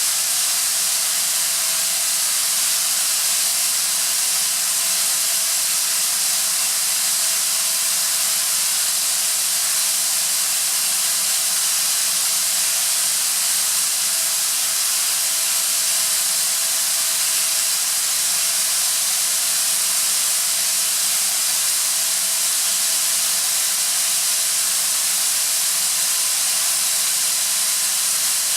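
Atlas Copco ZR315VSD oil-free rotary screw air compressor running with a steady, even hiss and a faint steady tone beneath it.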